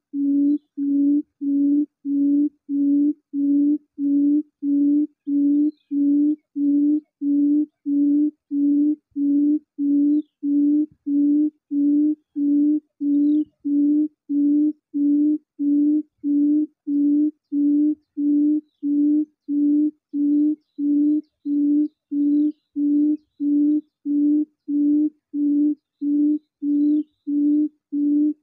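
Recorded buttonquail call played on a loop through a Bluetooth speaker as a lure: a steady low hoot repeated evenly, about three hoots every two seconds. Faint chirps of other birds come through now and then.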